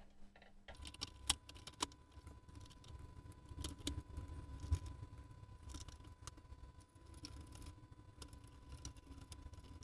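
Irregular small clicks and taps of parts of a Thurlby 1905a bench multimeter being handled and fitted back together by hand, over a low rumble and a faint steady high whine.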